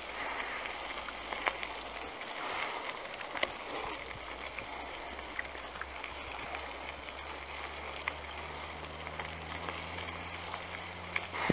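Caloi XRT mountain bike's tyres rolling over a dirt road, an even crunching hiss with scattered small clicks and rattles from the bike on the rough surface. A faint low hum joins in the last few seconds.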